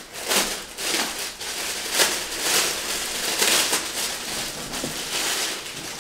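Clear plastic bag crinkling and rustling as it is handled and pulled off a turntable slipmat, a dense run of crackles.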